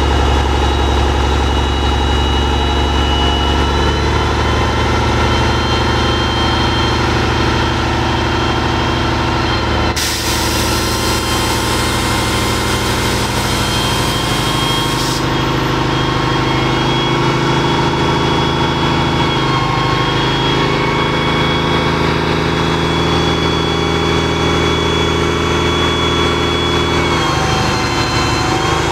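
A semi truck's diesel engine running steadily while its end-dump trailer's body is hoisted up to tip the load. About ten seconds in there is a loud hiss that lasts about five seconds. Near the end the engine note shifts.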